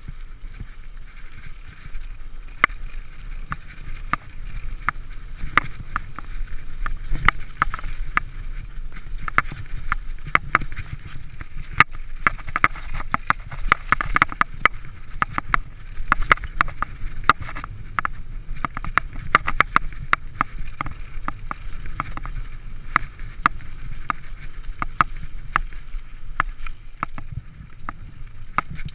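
Mountain bike rolling down a dirt singletrack: a steady rumble of the tyres on the trail, with frequent sharp clicks and rattles from the bike jolting over bumps, busiest in the middle of the run.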